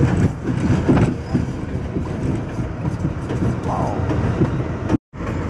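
New York City subway 7 train running along an elevated track, heard from inside the lead car: a steady rumble with irregular clatter of the wheels over the rails. The sound cuts out completely for a split second near the end.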